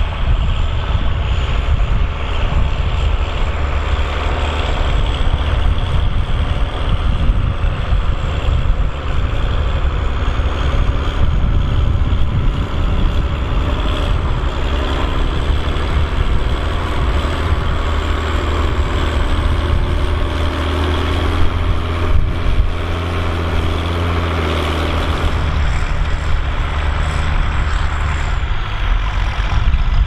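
International Harvester tractor's diesel engine running steadily under load while pulling a plough, a continuous deep drone with a thin, wavering high whine above it.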